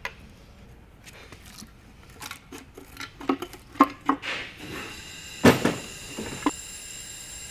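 Metal engine parts and hand tools clanking and knocking during an engine teardown, a string of sharp clanks with the loudest knock about five and a half seconds in. A steady hiss with a high whine sets in from about five seconds on.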